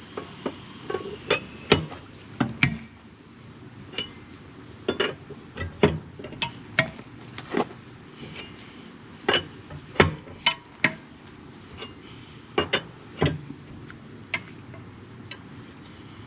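Irregular sharp metallic clinks and knocks of a lug wrench and lug nuts as the nuts on a car wheel are broken loose, a few louder strikes among lighter clinks.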